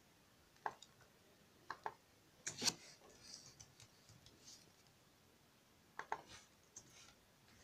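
Faint, scattered clicks from a computer keyboard and mouse, some in pairs, with a short cluster about two and a half seconds in.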